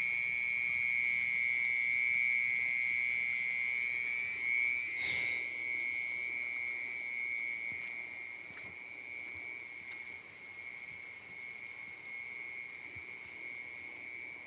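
A continuous, steady high-pitched cricket trill that grows somewhat fainter in the second half, with a brief rustle about five seconds in.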